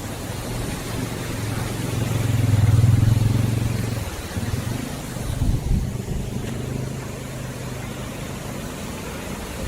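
Motorcycle engine running under way over a steady hiss of wind and road noise; the engine swells louder about two to three seconds in, then eases off.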